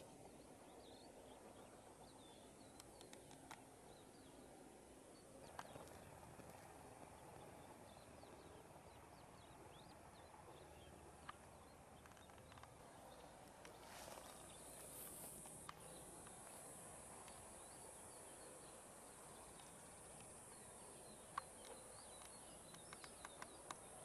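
Near silence: faint outdoor ambience with a few scattered light clicks.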